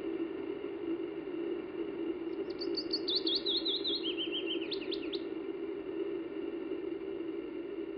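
A songbird sings one phrase of about three seconds: quick repeated notes that step down in pitch in two or three groups and end in a short flourish. A steady low hum runs underneath.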